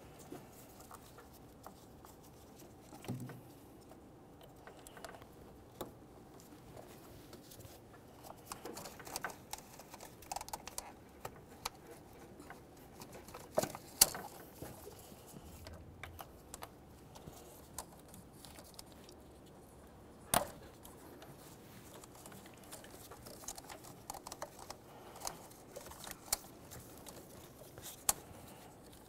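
Gloved hands handling rubber spark plug wires and boots around an ignition coil: scattered light taps and rustles, with two sharp clicks, one about halfway through and another some six seconds later, as wire boots snap into place.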